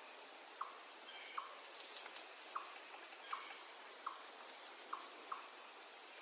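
Woodpecker calling in a field recording: short falling notes repeated about once or twice a second over a steady chorus of crickets. A few sharp high chirps stand out, the loudest about four and a half seconds in.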